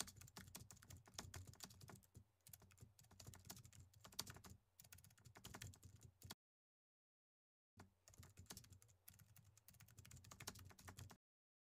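Quiet keyboard typing sound effect: a rapid run of key clicks that stops for about a second and a half midway, then resumes and stops shortly before the end.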